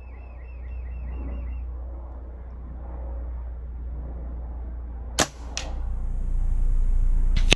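A .22 Weihrauch HW97k spring-piston air rifle fires once about five seconds in: a sharp crack, followed by a fainter crack about a third of a second later. Another short crack comes near the end, and a bird chirps a quick series of high notes at the start.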